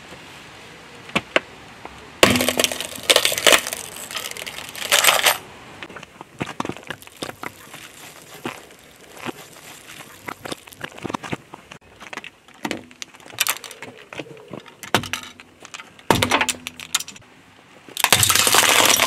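A car tyre rolling onto objects and crushing them. A plastic wall clock cracks and breaks in a dense run of crunches a couple of seconds in. Scattered sharp pops and clicks follow as small plastic bottles burst, and near the end a long, loud crunch comes as clear plastic toothpick canisters split and the wooden toothpicks snap.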